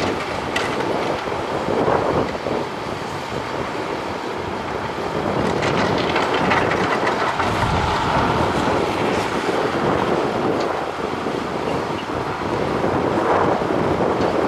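Heavy tracked earthmoving machinery working: diesel engine running under load with clanking and clatter from the steel tracks, the level swelling and easing as the machine works.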